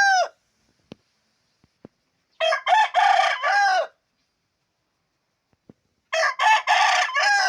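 Rooster crowing: the end of one crow at the very start, then two full crows, each a few short notes leading into a long drawn-out final note. The voice is good and clear, which the owner takes as the sign the rooster has recovered from its illness.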